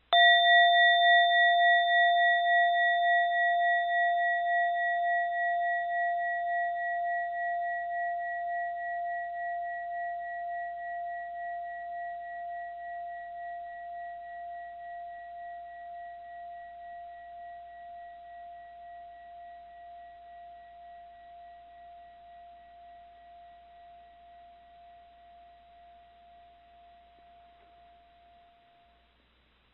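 A mindfulness bell struck once, its clear ringing tone pulsing slowly as it dies away over nearly half a minute.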